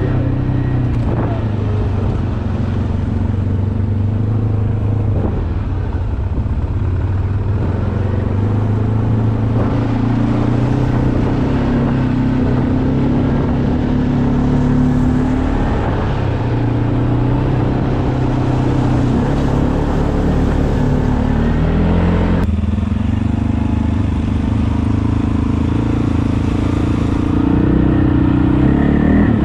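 ATV engine running under throttle, its pitch rising and falling as the throttle changes, with an abrupt shift in the sound about two-thirds of the way through.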